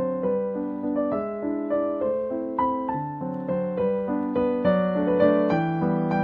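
Background solo piano music, a waltz, with single notes and chords struck several times a second, each ringing and fading.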